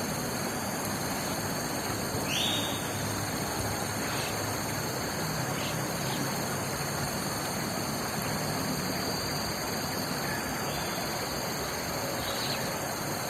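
Steady outdoor nature ambience, an even rushing hiss of wind or flowing water, with one brief bird call about two and a half seconds in.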